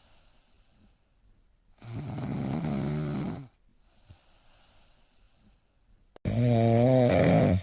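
Snoring: two long, drawn-out snores with quiet between, the second, about six seconds in, much louder.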